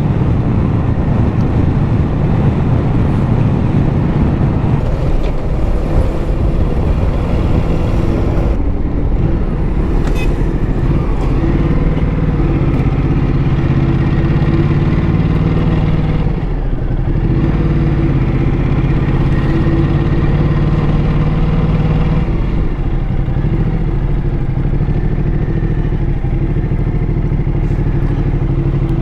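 Ducati Multistrada motorcycle engine running steadily under way, heard from the bike as it rides along; the engine note eases off briefly about halfway through, then picks up again.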